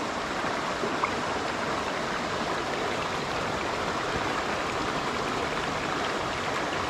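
Shallow mountain stream running over stones and gravel: a steady rush of water.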